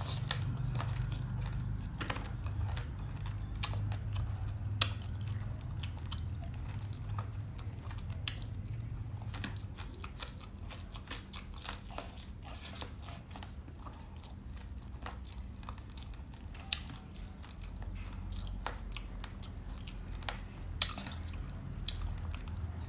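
A person chewing and biting food close to the microphone, with scattered crunches and a few sharp clicks, over a low steady hum.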